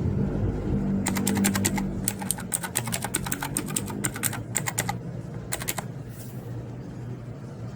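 Typing on an HP GK400F mechanical keyboard with clicky blue switches: a fast run of key clicks starting about a second in and lasting about four seconds, then a few more keystrokes.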